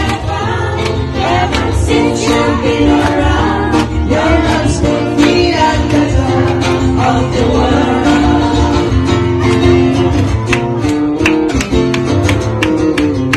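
A singer with acoustic guitar accompaniment, a steady bass line underneath.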